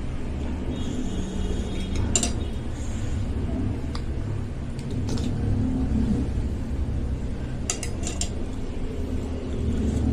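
Cutlery clinking against a bowl of bakso soup now and then while eating, a handful of short clinks over a steady low rumble.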